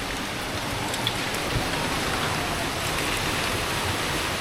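Heavy rain falling in a steady hiss, with a couple of faint drip-like ticks.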